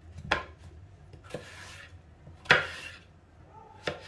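Kitchen knife cutting a zucchini into strips on a cutting board: four separate chops about a second apart.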